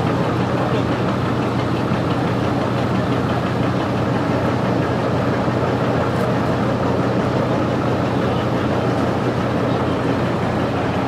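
Truck engine idling steadily close by, with an even, rapid chug.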